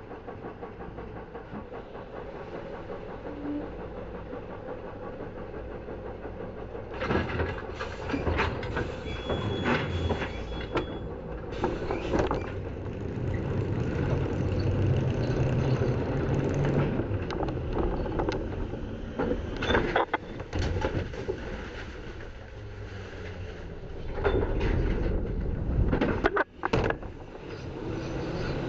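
Garbage truck's engine running close by, then from about seven seconds in, repeated clatter and knocks as the truck's automated side-loader arm grips the trash can and lifts and tips it. It is heard from a camera strapped to the can itself.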